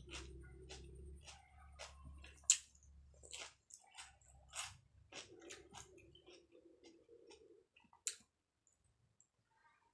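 Close-up mouth sounds of eating by hand: chewing with wet lip smacks and sharp irregular clicks, a few a second. A low steady hum underneath cuts out about three quarters of the way through.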